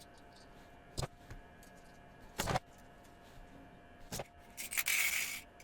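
Felt-tip marker pens handled on a table: three separate sharp clicks or taps, then about a second of scratchy marker strokes on paper near the end.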